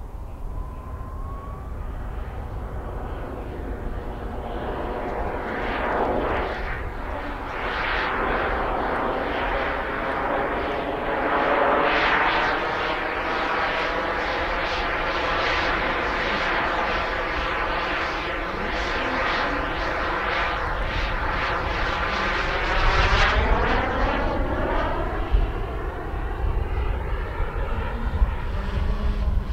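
Small model gas-turbine jet engine of a CARF Mephisto RC sport jet running in flight, a continuous jet rush that swells and eases as the model moves about. About three-quarters of the way through a falling sweep marks it passing by, after which the sound is duller and lower.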